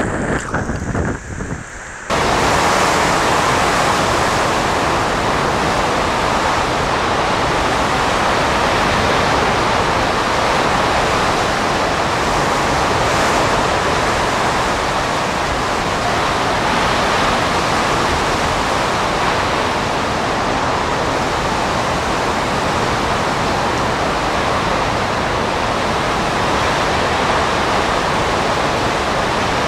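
Hurricane Katrina's hurricane-force wind and wind-driven rain blowing against the microphone as a dense, steady rush. It is quieter and uneven for about the first two seconds, then holds loud and steady.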